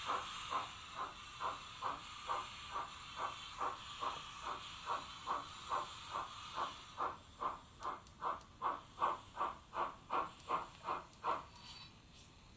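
Zimo sound decoder in a Roco H0 model of a class 55 steam locomotive playing steam-engine exhaust chuffs at a steady beat of about two a second through the model's small loudspeaker. A steady steam hiss underneath fades out about seven seconds in, and the chuffs stop about a second before the end.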